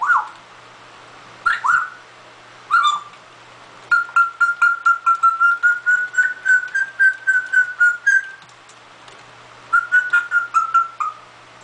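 Parrot whistling: three short whistles about a second and a half apart, then a long run of rapid whistled pulses at one steady pitch, about five a second for some four seconds, and a shorter run of the same near the end.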